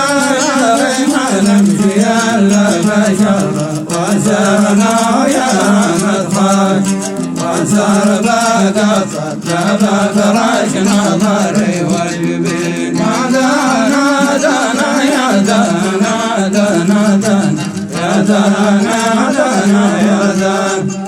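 Hadhrami dan singing: male voices chanting a long, wavering melodic line over a steady low sustained tone, in phrases with brief breaths between them.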